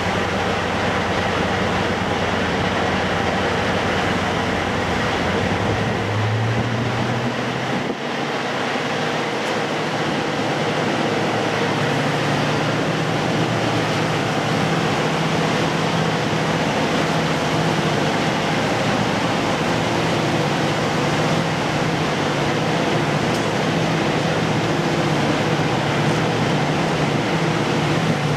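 Diesel locomotive engine running steadily. Its low note changes about six to eight seconds in and then settles into a steady hum.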